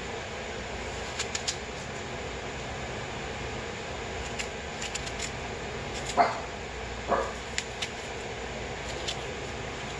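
Two short, high whimpering yelps from a small dog, falling in pitch, about six and seven seconds in, over a steady room hiss with scattered light clicks of a small plastic knife and fingers working food over a ceramic bowl.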